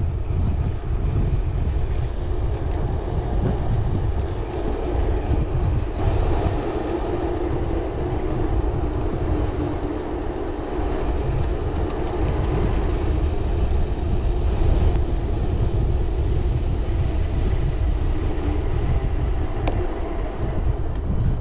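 Wind buffeting the microphone and tyre noise from a loaded touring bicycle riding downhill, a steady rushing rumble.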